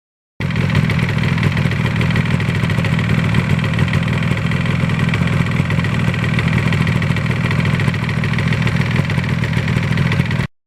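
Air-cooled two-stroke parallel-twin engine of a 1977 Yamaha RD400 motorcycle running steadily, without revving up or down; it starts and stops abruptly.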